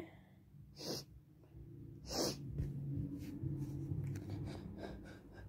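Two short, sharp bursts of breath through a person's nose, about a second in and again about two seconds in, the second louder, then a low hum for a couple of seconds. This is the nose reacting between sneezes to sniffed perfume, which the person says they are allergic to.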